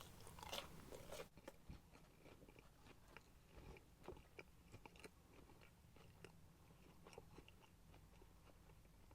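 Faint chewing of a McDonald's chicken nugget, with soft, irregular mouth clicks.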